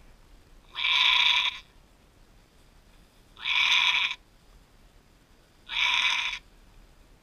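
A doe goat in labour bleating three times, each call under a second long and about two and a half seconds apart.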